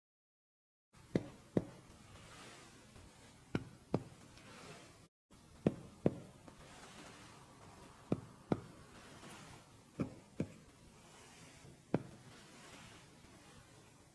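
Chest percussion in a lung examination: fingers tapping against the patient's chest wall. The taps are short and sharp and mostly come in pairs, a pair every two seconds or so, with five pairs and then a single tap near the end.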